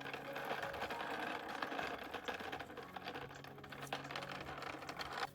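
A rapid, dense mechanical rattling clatter over soft background music, stopping abruptly near the end.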